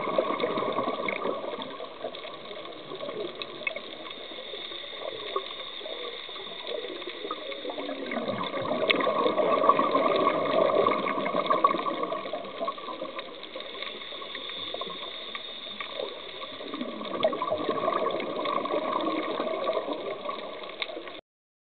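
A scuba diver's exhaled bubbles rushing from the regulator, heard underwater, in three surges about eight seconds apart over a steady underwater hiss.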